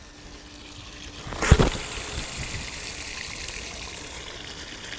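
A long surf-casting rod whooshing through a cast with a heavy 30-ho sinker about a second and a half in, followed by a steady hiss of braided line running off the spinning reel as the sinker flies out.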